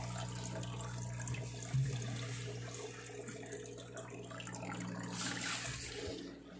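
Aquarium filter or pump on a turtle tank running with a steady hum, water trickling and splashing into the tank.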